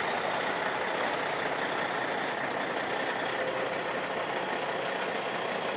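A Kenworth semi-truck's diesel engine running steadily, heard as an even noise with no sudden events.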